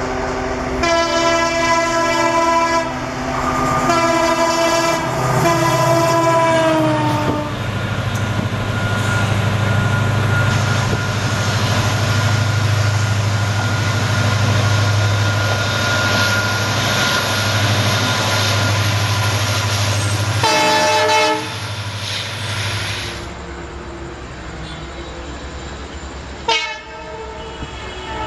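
Diesel locomotive horn blasting three times, the third sliding down in pitch as the locomotive passes, followed by the steady low drone of the diesel engine and the rumble of the train running by. A short horn blast comes about two-thirds of the way in, and more brief blasts come near the end from an approaching locomotive.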